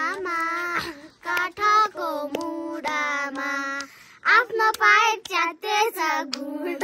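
A young girl singing a Nepali song unaccompanied, holding long steady notes that step up and down, with brief breaths about a second in and again about four seconds in.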